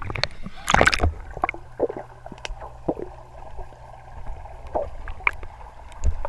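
Splash as a GoPro goes under the surface of a swimming pool about a second in, then muffled underwater sound through its housing: a low steady hum with scattered clicks and pops.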